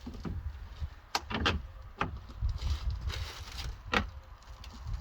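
Plastic shed panels being handled, giving several sharp knocks and clacks, the loudest about four seconds in, over a steady low wind rumble on the microphone.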